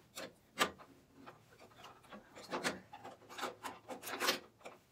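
Irregular metal clicks and scrapes as a stacked dado blade and its arbor nut are fitted by hand onto a Makita 2708 table saw's arbor.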